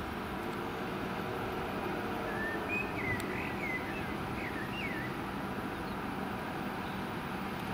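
Steady engine rumble from fire engines and their pumps running at a fire scene. Between about two and five seconds in, a small bird chirps a quick series of short notes over it.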